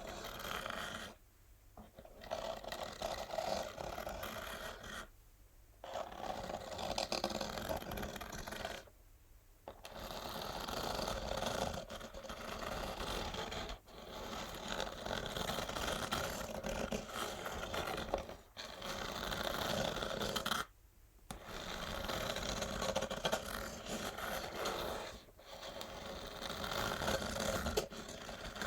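Natural fingernails scratching an empty textured cardboard box: long, continuous scratching strokes, each a few seconds long, broken by brief pauses about every four seconds.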